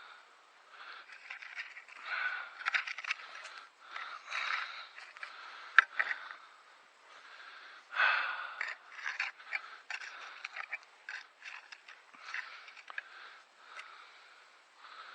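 Irregular scraping and rustling of digging through garden soil for potatoes, with a couple of sharper clicks near the middle.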